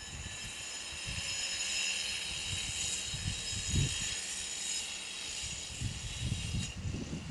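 An insect's high steady buzzing drone, cutting off suddenly near the end, with low irregular gusts of wind buffeting the microphone.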